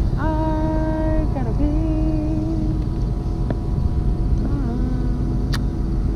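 A woman humming a few drawn-out notes, her pitch sliding down between the first two, over a steady rumble of wind on the microphone.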